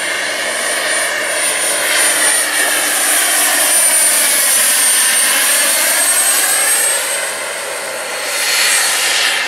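Radio-controlled turbine model helicopter in flight: a steady, high turbine whine over a broad rushing noise. The tone sweeps up and down as the helicopter moves about, loudest through the middle and swelling again briefly near the end.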